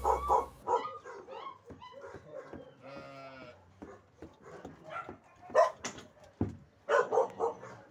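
Young puppies yelping and whining in short, high cries, the loudest a couple of sharp yelps about five and a half and seven seconds in.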